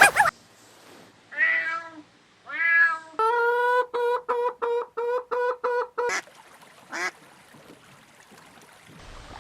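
A cat meowing: two drawn-out meows, then a quick run of about nine short, evenly pitched cries about three a second, and one more cry about seven seconds in.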